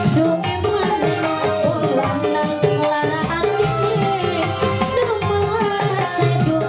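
Live dangdut-style band music played loud through a PA sound system: a steady hand-drum beat under a wavering melody line.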